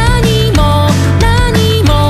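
Loud background pop music: a melody that slides up and down over steady bass notes.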